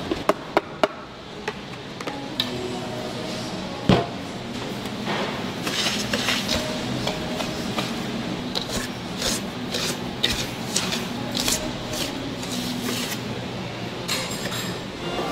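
Kitchen work sounds: scattered knocks and clinks of utensils and dishes, with a louder thud about four seconds in and a quick run of clicks and clinks in the second half.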